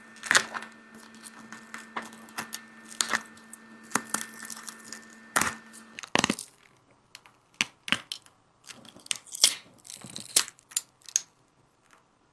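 Irregular sharp clicks, taps and crinkling of small tools handling a phone's cracked glass and parts. A steady hum sounds underneath for the first half and cuts off about six seconds in.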